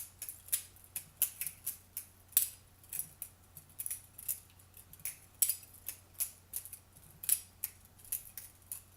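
Butterfly knife (balisong) with a live blade being flipped by hand: quick, irregular metallic clicks and clacks as the handles swing and knock together, several a second, with short pauses between runs.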